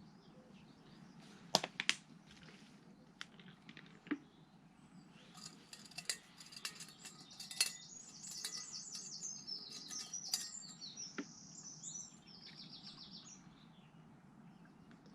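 Small songbirds singing rapid, high-pitched chirping trills for several seconds, starting about five seconds in. A few sharp clicks and taps come early on and again mid-way.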